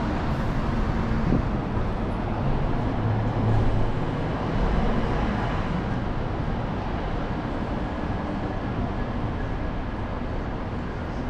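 Steady city street ambience: a continuous wash of road traffic noise from passing cars, with no single event standing out.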